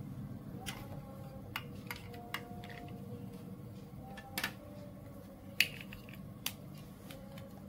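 Scattered sharp clicks of large plastic building bricks being handled, about seven in all, the loudest about five and a half seconds in, over a low steady hum.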